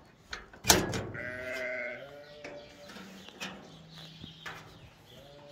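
Sheep bleating several times, with one sharp knock less than a second in.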